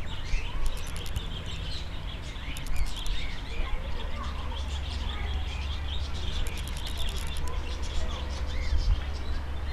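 Small songbirds chirping, many short overlapping calls with a few rapid trills, over a steady low rumble.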